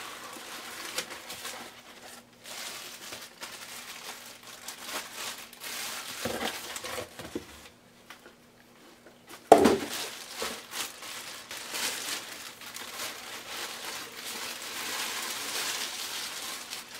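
Clear plastic bag and wrapping crinkling as a mask is pulled out of a cardboard box and unwrapped. A short lull just before halfway, then a single loud thump, then more crinkling.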